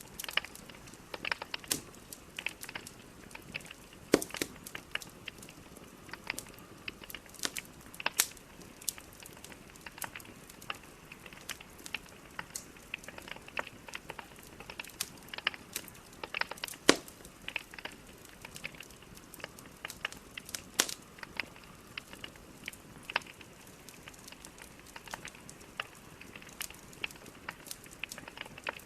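Wood fire burning in a fireplace: burning logs crackling and popping irregularly over a low steady hiss, with a few louder sharp cracks.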